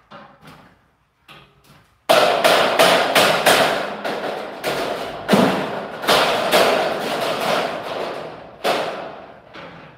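Hammer blows on steel stud framing, a fast run of sharp metallic strikes about three a second, starting about two seconds in and stopping near the end, after a few fainter knocks.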